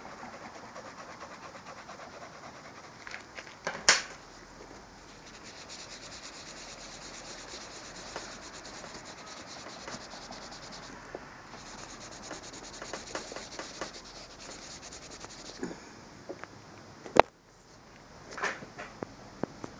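Graphite pencil shading on notebook paper being blended: quick, fine rubbing strokes on the paper, with a short break about eleven seconds in. Two sharp clicks, one about four seconds in and a louder one near the end.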